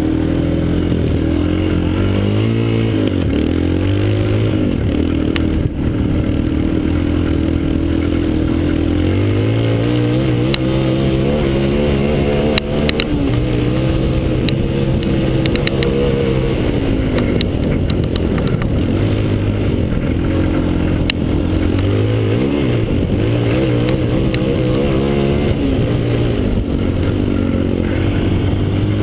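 Yamaha Raptor 250 quad's single-cylinder four-stroke engine running under way, its pitch rising and falling in steps and glides as it revs up and eases off. A few sharp clicks sound near the middle.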